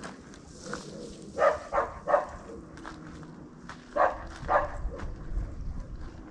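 A dog barking in short single barks: three in quick succession, then two more about two seconds later.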